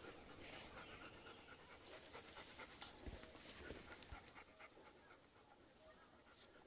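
A dog panting faintly, with a couple of soft low thumps.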